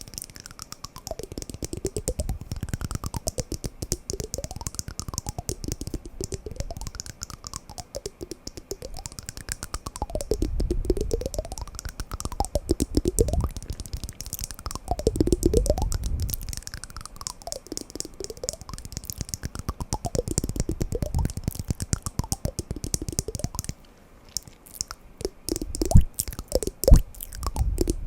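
Wooden blocks tapped and knocked in quick, dense clicks, like typing. Near the end they thin out to fewer, sharper separate knocks. A faint tone slides down and back up every couple of seconds behind them.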